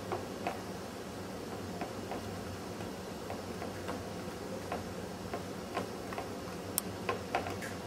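Irregular light clicks and taps from hands working fish patties in flour on a plate, with a sharper clink about seven seconds in, over a steady low hum.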